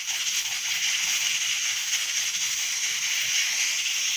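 Steam hissing steadily from the red weighted pressure valve of an aluminium stovetop pressure cooker that has come up to pressure.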